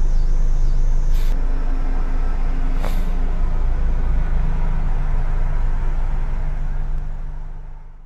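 Steady low rumble of a van's engine idling, heard from inside the cab, with two brief hisses about one and three seconds in; the sound fades out at the very end.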